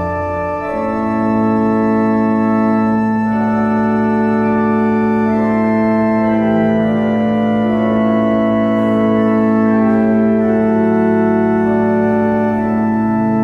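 Background music: slow, sustained chords over a held low note, changing every few seconds.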